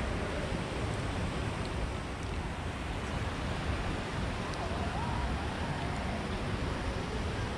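Steady outdoor city-square background noise with wind rumbling on the microphone and faint distant voices.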